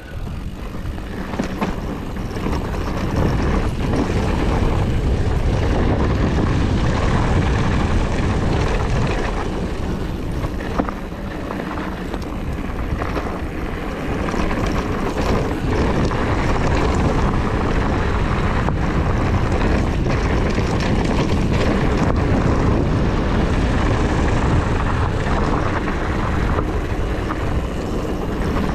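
Wind buffeting the action-camera microphone on a mountain bike running fast down a gravel trail, with tyres crunching over loose stones and the bike rattling. The rush eases briefly about ten seconds in, then builds again.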